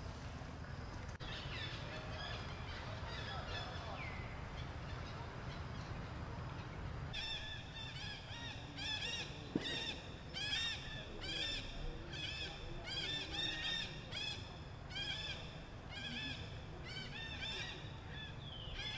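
An animal calling over and over in a quick series of short, high, arched calls, about two a second, starting about seven seconds in. A steady low background rumble runs underneath.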